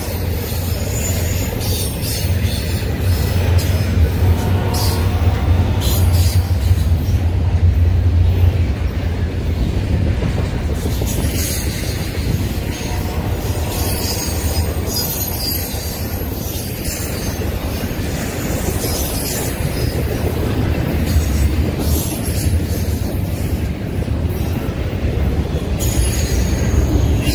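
Double-stack intermodal freight cars passing at close range: a steady low rumble of wheels on rail, with high-pitched wheel squeal coming and going.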